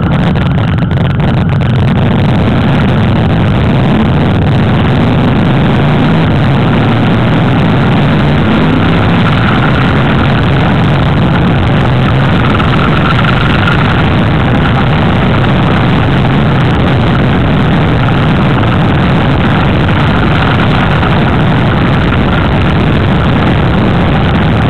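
Motorcycle engine running steadily at riding speed, heard from aboard the moving bike, with a constant rush of wind and road noise.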